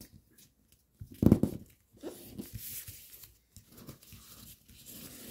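Foil-backed paper crinkling and rustling as its edges are folded back and creased flat by hand. There is a brief, loud low sound about a second in.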